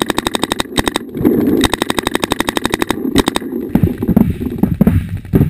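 Paintball marker firing rapid strings of shots, more than ten a second, with a short break about a second in; the firing stops after about three seconds, followed by scattered, irregular knocks.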